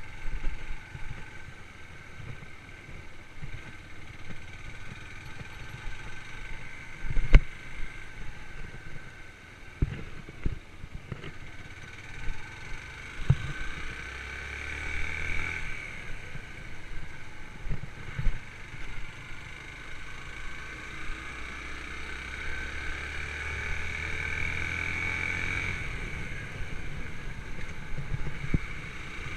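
Yamaha YBR125's single-cylinder four-stroke engine running while the motorcycle is ridden, its note swelling twice, in the middle and again later on. Several sharp knocks cut through it, the loudest about seven seconds in.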